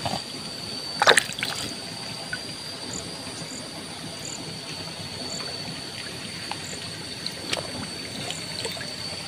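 Shallow muddy pond water trickling and lapping, with one sharp click about a second in.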